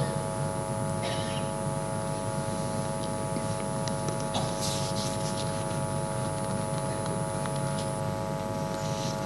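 Steady electrical mains hum, several even tones held without change, with a few faint brief rustles and clicks over it.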